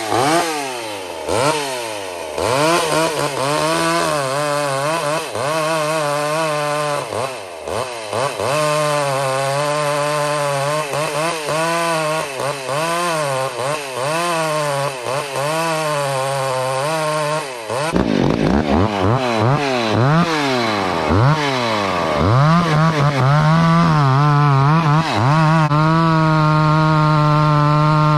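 Two-stroke chainsaw bucking a log, its engine pitch dipping and rising again and again as the chain loads in the cut. About eighteen seconds in the sound changes abruptly; near the end the saw holds a steady high rev.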